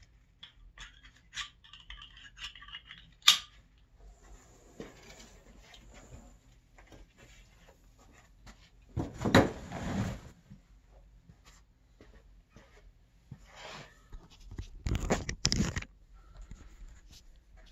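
Handling noises from a pulk sled and its tow poles and harness: light clicks and rattles, one sharp click about three seconds in, and two louder rubbing noises, each about a second long, around nine and fifteen seconds in as the sled is moved.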